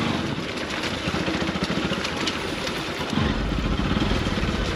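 Single-cylinder Bajaj Pulsar NS motorcycle engine running at low revs, heard from the rider's seat as the bike picks its way along a rough dirt trail. A little over three seconds in, the engine sound turns louder and deeper.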